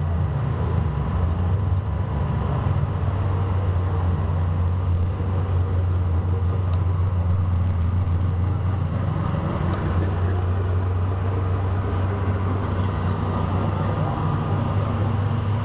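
Steady low engine drone that holds the same pitch and level throughout, with a couple of faint clicks.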